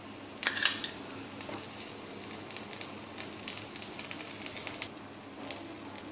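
Metal spoon spreading pizza sauce over a semolina pizza base in a frying pan: soft scraping with light clicks of the spoon, and one sharper clink about half a second in.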